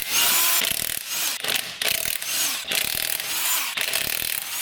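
Electric welder's arc crackling and hissing in a run of short bursts as a section of exhaust pipe is welded back on.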